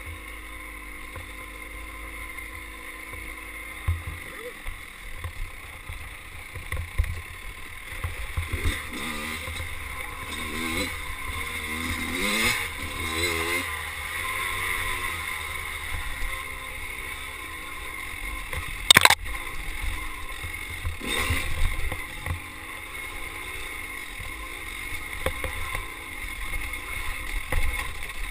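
Dirt bike's single-cylinder engine revving up and down as it is ridden over rough ground, with knocks and rattles from the bike. One sharp knock about two-thirds of the way through is the loudest sound.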